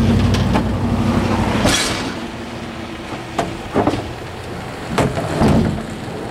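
Scrap metal being loaded into a pickup truck bed: a series of separate clanks and knocks, while a low engine hum runs through the first couple of seconds.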